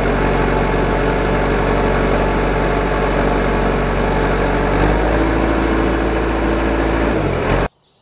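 Steady droning of a running motor, its tone shifting slightly about five seconds in and cutting off abruptly near the end.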